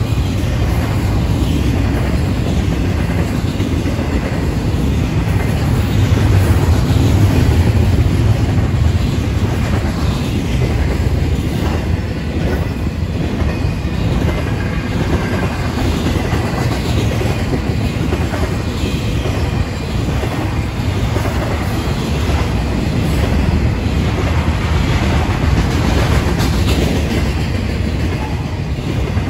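Double-stack intermodal freight cars rolling past: a steady low rumble with the clickety-clack of wheels over the rail joints, loudest about six to nine seconds in.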